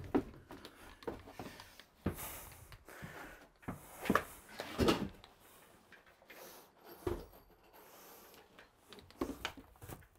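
Irregular knocks and thumps of a person stepping onto a freshly mortared shower base and shifting his weight on it to press it down into the mortar bed.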